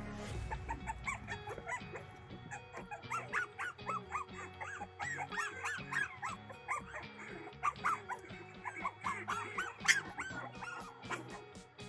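Young Boston Terrier puppies whimpering and squeaking, many short high cries in quick, irregular succession, over background music.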